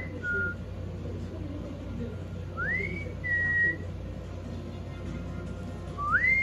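A two-note whistle repeated three times, about three seconds apart: each time a quick upward slide into a short high note, then a held, slightly lower note.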